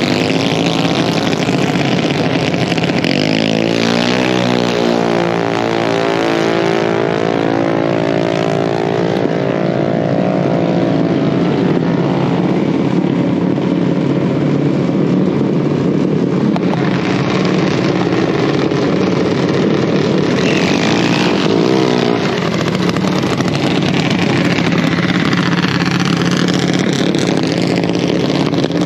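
Junior dragster engines running loudly and steadily at the drag strip. In the first several seconds the engine tone sweeps as a car pulls away down the track.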